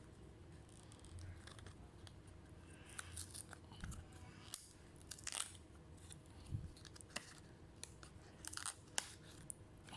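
Scattered small clicks, taps and scrapes of hands working on an open laptop's internals, a dozen or so sharp ticks at irregular intervals, the loudest about halfway through and near the end.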